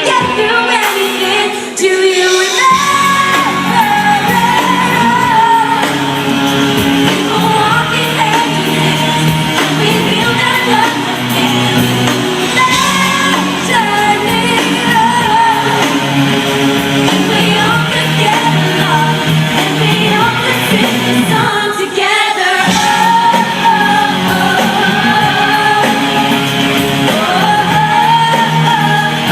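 Live pop band with a female lead singer, played through a PA in a large hall. The bass comes in about two seconds in and drops out briefly about three quarters of the way through.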